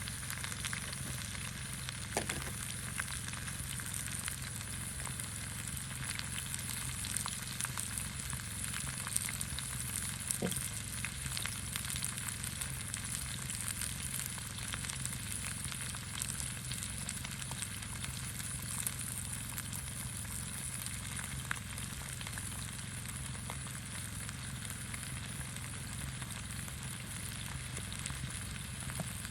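Food sizzling in a pan over a campfire: a steady frying hiss with small crackles and the odd sharper pop.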